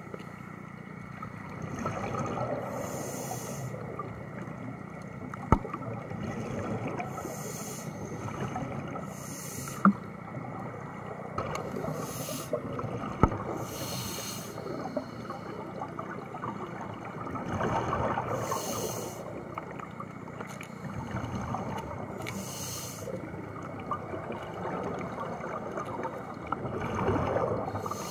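Scuba regulator breathing heard underwater: short hissing inhalations every few seconds and bubbling, gurgling exhalations, with three sharp clicks in between.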